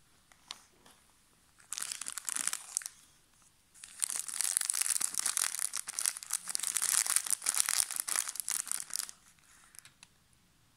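Shiny plastic wrapper of a cream wafer snack packet crinkling as it is handled in the fingers: a short spell of crinkling about two seconds in, then a longer, denser stretch from about four seconds to about nine.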